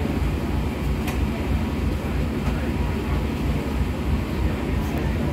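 Steady low rumble of a Star Ferry's engine running under way, with a wash of water and wind noise on deck.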